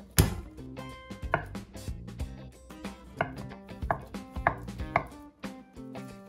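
A kitchen knife slicing a block of Spam on an end-grain wooden cutting board, the blade knocking sharply on the board with each cut, about five knocks at uneven spacing. Just after the start there is a louder knock as the block of canned meat drops out of its can onto the board.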